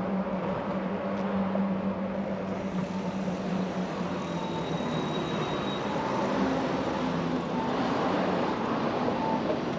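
Steady road traffic noise with a low, steady engine hum that shifts slightly in pitch about two-thirds of the way through.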